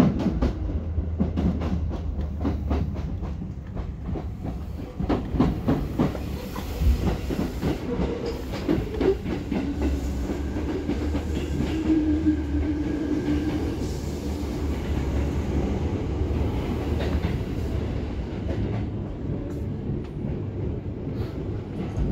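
Seibu electric commuter train heard from the driver's cab, its wheels clicking rapidly over rail joints and points in the first few seconds. A steady rumble follows as it slows into a station, with a short low whine in the middle.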